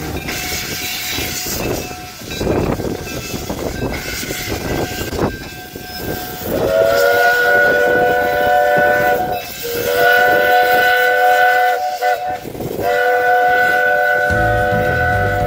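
Narrow-gauge steam locomotive Klondike Kate getting under way with hissing steam. About six seconds in, its steam whistle sounds a chord of several notes in three long blasts, the last held to the end.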